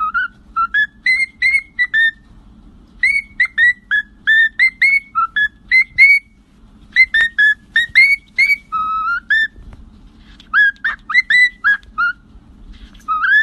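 A parrot whistling rapid runs of short, chirping notes, about three or four a second, with brief pauses about two seconds in and again near ten seconds.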